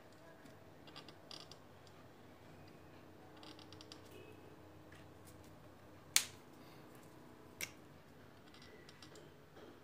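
Faint scratching of a felt-tip marker drawing short strokes on a whiteboard, then two sharp clicks, the louder one about six seconds in and a smaller one a second and a half later.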